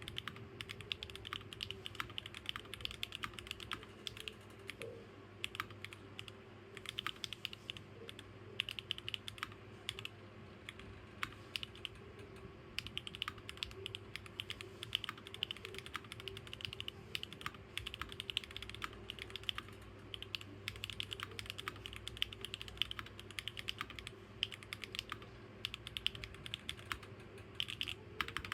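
Custom mechanical keyboard being typed on: a continuous, irregular run of keystroke clacks, several a second, with no pauses.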